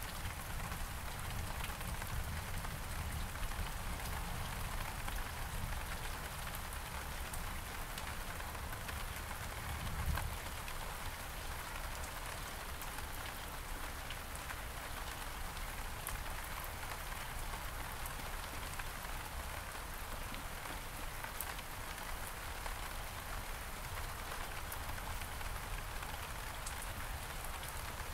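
Steady rain falling on several kinds of surfaces, with scattered sharp drop ticks. A brief low thump about ten seconds in.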